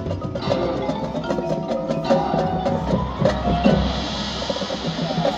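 Marching band playing: brass instruments holding pitched tones over percussion, with many short sharp drum hits in the first half.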